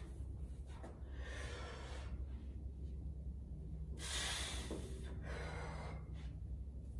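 A lifter's heavy breaths under load, about three forceful breaths as he braces for a one-legged pistol squat with a 44 kg kettlebell held at his chest, the loudest about four seconds in. A steady low hum runs underneath.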